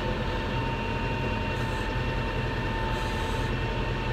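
Kioti tractor's diesel engine working under load as the front loader pushes round bales along a trailer, heard from inside the cab, with a steady high whine over the engine hum. Two brief hisses come about a second and a half in and again about three seconds in.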